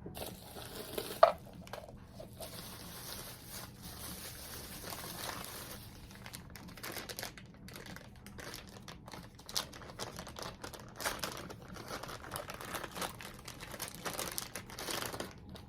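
Packaging being unwrapped by hand: continuous crinkling and rustling of wrapping with scattered sharp crackles, the loudest about a second in.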